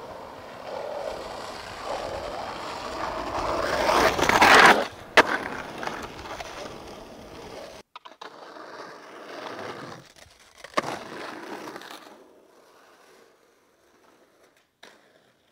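Skateboard wheels rolling on pavement, growing louder to a rough scrape about four to five seconds in, ended by a sharp clack of the board. More rolling follows with another clack, then it fades away.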